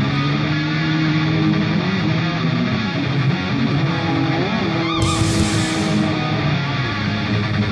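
Background rock music led by electric guitar, with held notes and pitch bends.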